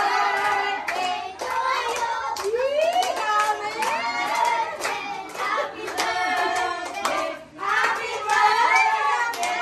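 Adults and children singing a birthday song together, with hands clapping along in time; the singing breaks off briefly about three-quarters of the way through.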